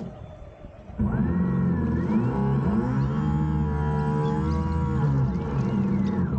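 RC scale model boat's drive motor heard from on board, coming in suddenly about a second in as the throttle opens: a pitched hum that rises, holds steady for a few seconds, then falls away as the throttle is eased near the end.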